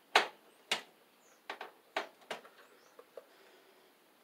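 Handling noise at an electrical breaker panel: a string of irregular sharp clicks and taps from tools and wiring being worked, the first the loudest.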